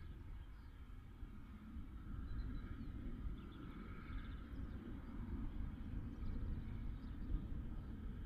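Wind rumbling on the microphone, with faint birdsong chirping now and then.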